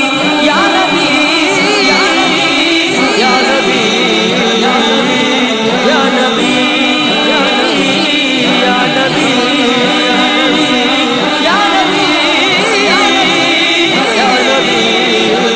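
Voices singing a devotional Islamic chant in praise of the Prophet, with long wavering melodic lines and held notes, without a break.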